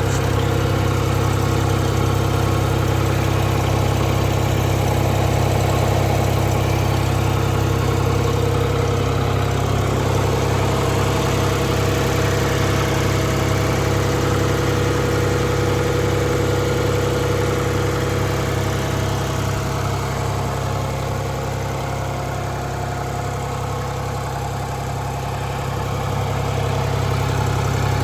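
John Deere backhoe's diesel engine idling steadily just after being started.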